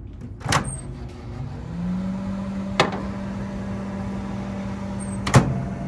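Stainless-steel dial-timer microwave oven: sharp clicks about half a second in and near three seconds, then the steady low hum of the oven running, which starts a little under two seconds in, with a louder click near the end.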